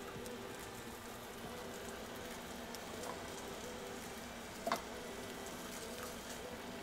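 Fried eggs and cubed beef frying in a pan with a faint, steady sizzle. One sharp snip of kitchen scissors cutting the beef comes a little after halfway.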